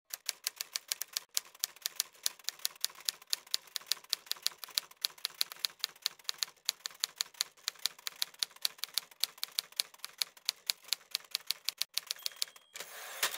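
Typewriter keystroke sound effect clacking rapidly and evenly as on-screen text is typed out, about six or seven strokes a second, ending in a short louder rasp near the end.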